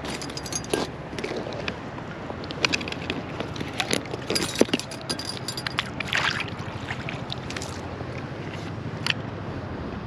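A small rainbow trout being let go from a wooden-framed landing net in shallow river water: scattered splashes, drips and sharp handling clicks as the net and hands dip into the water, over the steady rush of the river.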